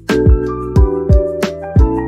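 Background music with a steady beat: kick drum, ticking hi-hat and sustained keyboard chords.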